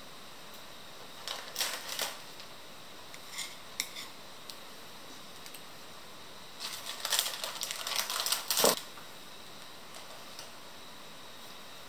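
Crisp grilled fish skin and bones crackling as the fish is pulled apart by hand, in two bursts of crackling, one near the start and a longer one in the second half, with a few light clicks between.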